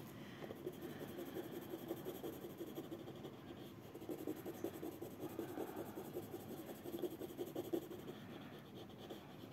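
Coloured pencil shading a small box on paper: faint, quick scratching strokes back and forth, busier in the second half.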